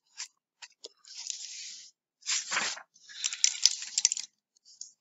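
A book's paper pages rustling and crackling as the book is handled and lowered, in several short bursts with a few sharp clicks.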